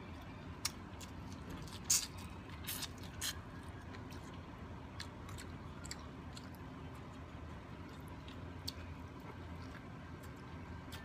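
A person chewing a mouthful of food, with sharp crunchy clicks, several in the first few seconds and fainter ones scattered after.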